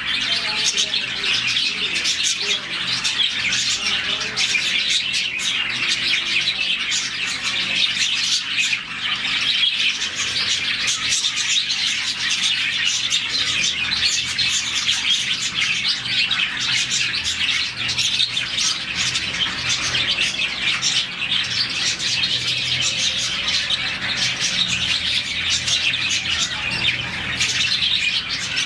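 A flock of budgies chirping and chattering together, a dense unbroken mass of overlapping short, high calls.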